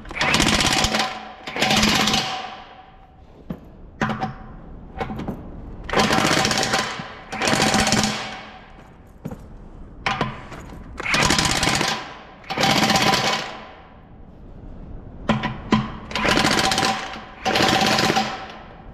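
Large cordless impact wrench tightening wheel nuts. It hammers in eight bursts of about a second each, mostly in pairs a few seconds apart. On its medium clockwise setting it gives a set number of hits and then stops on its own.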